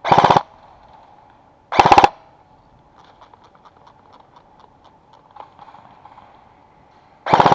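Airsoft rifle firing short full-auto bursts: three quick rattling volleys of about a third of a second each, near the start, about two seconds in, and at the very end, with faint scattered ticks between them.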